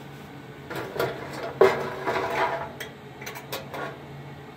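Handling noises around a sheet-copper model on a workbench: a string of light knocks, clicks and rubbing, the loudest a sharp knock about a second and a half in, over a steady low hum.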